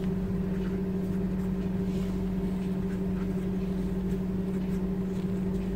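A steady low electric hum, with faint soft rustles as thin steamed flour wrappers are peeled apart by hand.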